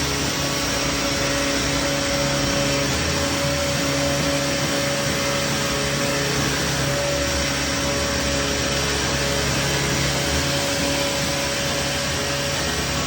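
Large sawmill saw running steadily as it rips a log lengthwise, a continuous machine drone with a few held tones.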